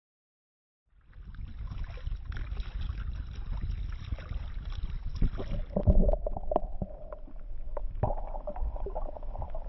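Starting about a second in, wind rumbling on the microphone with paddle strokes and water sounds from an outrigger canoe being paddled. About six seconds in the sound turns muffled, with clicks and knocks, as the camera goes underwater.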